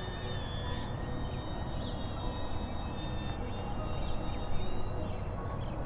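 Outdoor ambience: wind rumbling on the microphone and birds chirping now and then, over a steady high whine.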